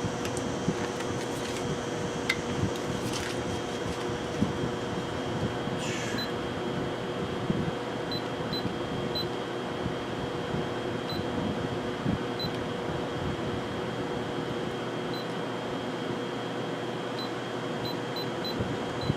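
Milling machine running with a steady hum, with a few light clicks early on and faint short beeps here and there.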